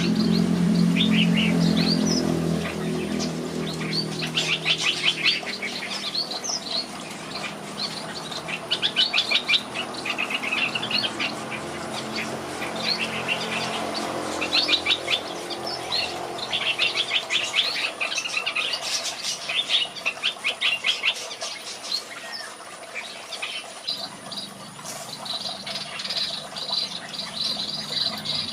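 Red-whiskered bulbuls chirping and singing in quick rattling trills and short high phrases, on and off throughout. A low steady hum is loudest in the first couple of seconds and fades out by about three seconds in.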